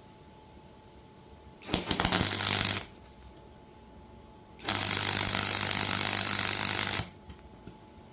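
Gasless flux-core MIG welder crackling in two tack-welding bursts, about a second long and then about two and a half seconds, with a low hum under each, on the cracked seat mount of a Cub Cadet XT1 mower's steel body. The welds are blowing holes through the metal.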